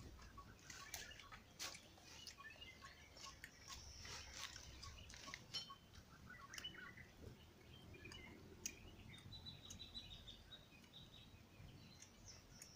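Near silence with faint bird chirps and calls, and scattered small clicks and crackles.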